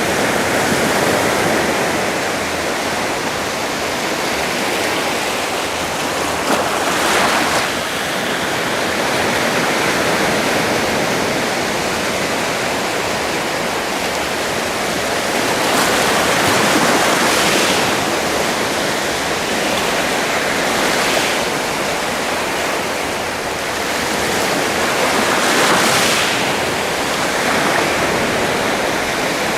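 Sea waves washing on a shore: a steady surf hiss that swells about every nine seconds as a wave breaks.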